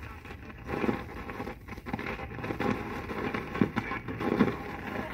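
Dusty vinyl LP playing on a 1970s Craig stereo's record changer through its speakers, with pretty rough sound: loud crackle and hiss over faint, muffled music. The crackle comes from a record that is all dusted up, on a needle the owner suspects is probably worn out.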